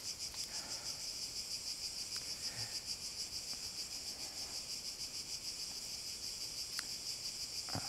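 Steady chorus of insects, a high pulsing buzz.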